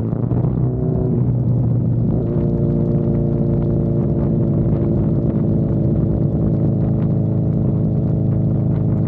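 Honda CB1000R inline-four engine running while being ridden. Its note breaks up and changes pitch briefly in the first two seconds, then settles into a steady drone at constant throttle.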